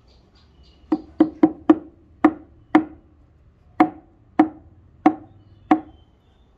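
Ten sharp woody knocks, unevenly spaced, each with a brief ring, as the rosewood handle is struck to seat the Pulaski axe head on it.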